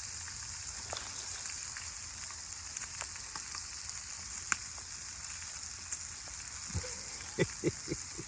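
Spam slices frying in a skillet: a steady sizzle with scattered crackling pops, and a few duller knocks near the end.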